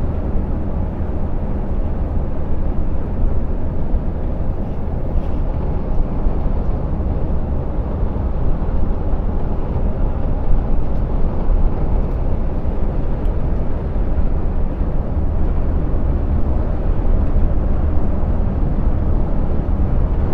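Steady low drone of a heavy truck's engine and road noise heard inside the cab while driving.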